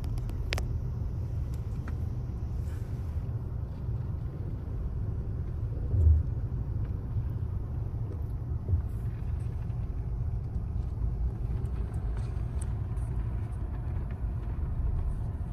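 Steady low rumble of a car's engine and tyres heard from inside the cabin while driving slowly, with a brief low thump about six seconds in.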